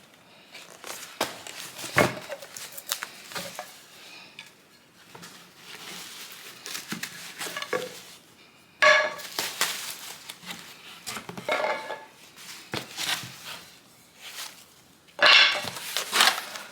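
Coffee-table legs and their packaging being handled and unpacked: scattered knocks and clinks of hard parts, with two louder scraping bursts about nine and fifteen seconds in.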